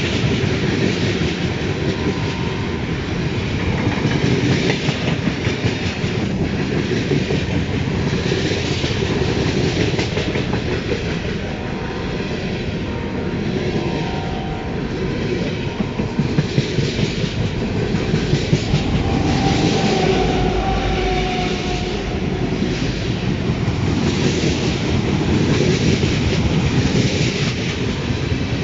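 Ferromex freight train cars rolling past, wheels clacking steadily over rail joints. A faint high tone sounds twice around the middle.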